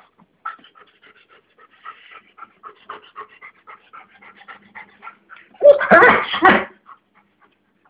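Doberman panting in quick, short, rhythmic breaths. About six seconds in, a dog gives a loud vocal burst lasting about a second.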